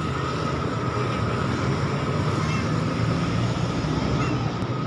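Steady low drone of a running motor, with a faint high whine held underneath and two brief high chirps, one midway and one near the end.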